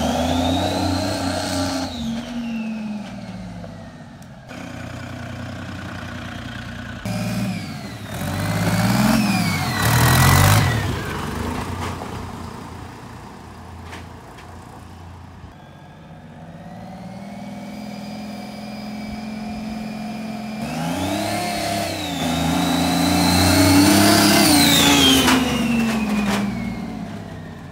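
Turbocharged rat rod engine accelerating and easing off through several pulls, the longest late on. A high turbo whistle rises and falls with the revs.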